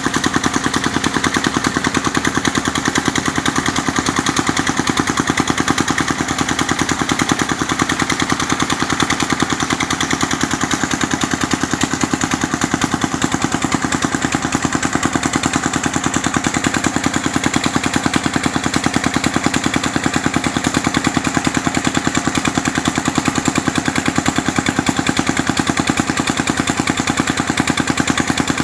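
Small engine running steadily with a rapid, even thumping beat that never changes through the stretch.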